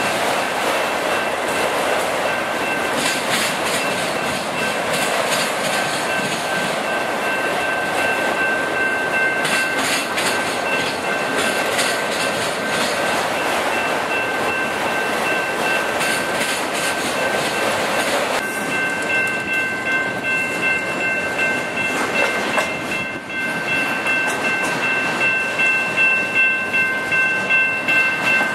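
A freight train of autorack cars rolling past at close range with a steady rumble and clatter of wheels on rail. A steady high-pitched tone rides over it throughout, and more tones join about two-thirds of the way through. Near the end the wheel clatter comes in regular beats, about one a second.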